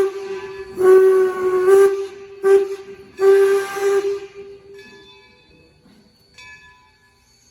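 Steam locomotive whistle blowing a long blast, a short blast, then a longer blast, each with a hiss of steam, before falling quiet.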